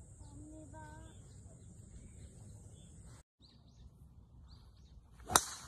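Golf club striking a ball on a full swing from the fairway: one sharp, short crack near the end, the loudest sound. Before it, quiet outdoor ambience with a steady high hiss and a few faint chirps.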